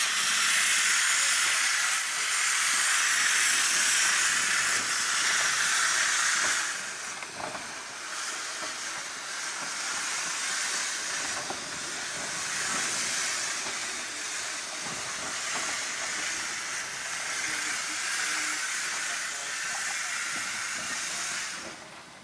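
Saddle-tank steam locomotive No. 49 hissing steam in a steady rush, loud for the first six or seven seconds and then quieter but continuing until near the end.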